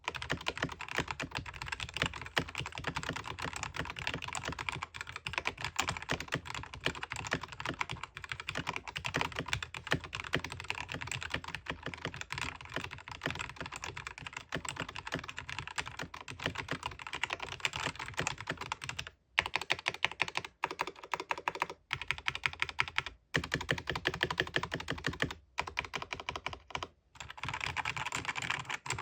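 Fast typing on a cheap ($8) mechanical keyboard: a dense, continuous stream of key clacks, with a few short pauses in the second half.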